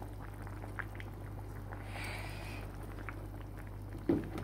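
Pan of vegetables and chicken simmering on a stovetop burner: a soft, steady bubbling with a few faint pops, over a steady low hum.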